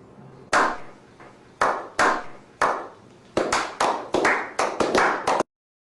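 A series of sharp smacks, each with a short ringing decay: four spaced about half a second to a second apart, then about nine in quick succession. The sound cuts off abruptly near the end.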